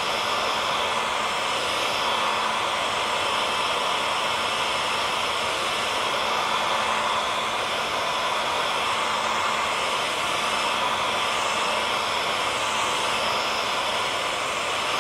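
Hair dryer running steadily: an even blowing rush with a faint steady motor hum underneath.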